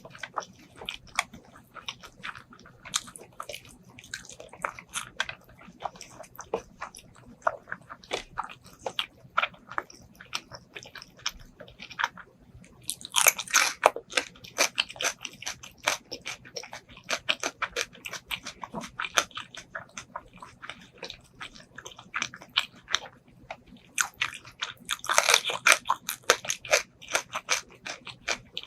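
Close-miked chewing and biting of braised pork ribs and rice: irregular wet mouth clicks and smacks throughout, with two louder, denser stretches of bites, one about halfway through and one near the end. A faint steady hum lies underneath.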